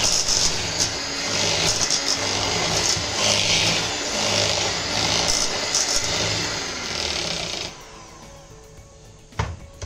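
Electric hand mixer running, its beaters whisking soft butter and egg yolk in a stainless steel bowl while creaming the cake batter. The mixer cuts off about three-quarters of the way through, and a single sharp knock follows.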